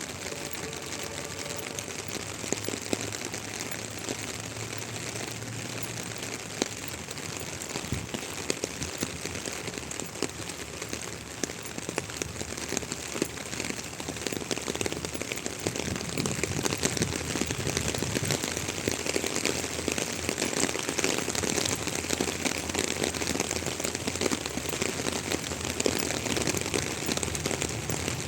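Steady rain falling, a dense hiss of many small drop ticks that grows louder about halfway through.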